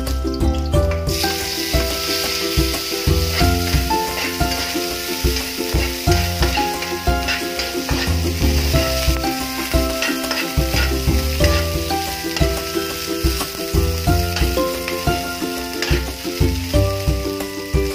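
Garlic and onion sizzling in hot oil in an aluminium wok, the sizzle starting about a second in, with a metal spatula stirring and scraping the pan. Background music with a pulsing bass plays throughout.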